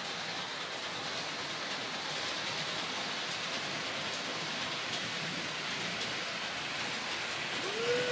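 H0 model trains running on the layout's track: a steady rolling hiss. Near the end a single tone glides up and holds briefly.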